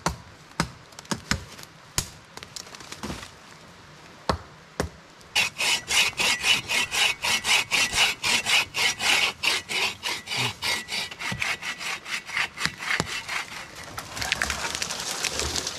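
A few scattered chopping strikes into a small tree's trunk, then a hand saw cutting through the base of the trunk in fast back-and-forth strokes, several a second. Near the end the strokes run together into a continuous scraping.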